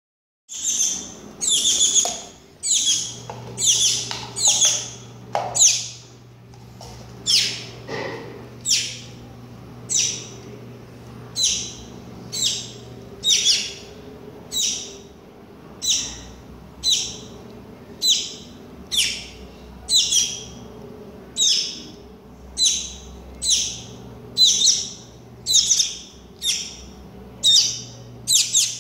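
Young shiny cowbird calling over and over, a short, sharp high chirp about every three-quarters of a second.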